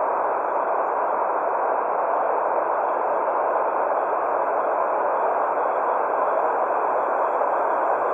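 Steady white noise played for baby sleep: an even hiss, strongest in the middle range, with no low rumble and no change in level.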